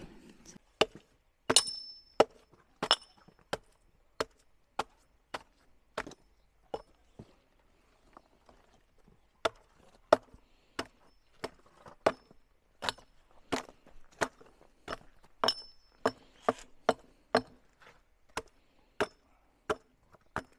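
Shovel chopping and stabbing through cement being mixed by hand: repeated sharp strikes, about one and a half a second, with a brief lull about eight seconds in. A few strikes leave a short high ringing tone.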